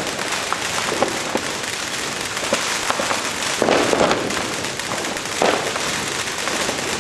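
Fireworks and firecrackers going off all around in a constant crackle of small bangs and pops, with a few louder clusters of cracks partway through.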